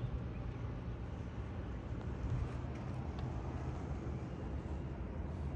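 Steady low background rumble with a faint low hum and no distinct event.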